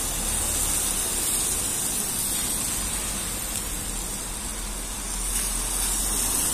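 Steady hiss of a rain-wet street: tyres on wet asphalt, with a low hum underneath.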